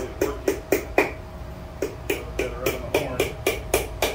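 Rapid hand-hammer blows on hot steel over an anvil, about four a second, with a pause of about a second near the start before the blows resume. The hammering is flaring out the end of a thick steel candle-holder cup on a flaring tool made from a lug wrench.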